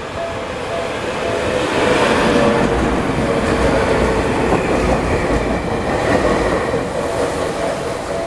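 A train passing: a rumble that grows louder over the first two seconds, holds, then eases off near the end.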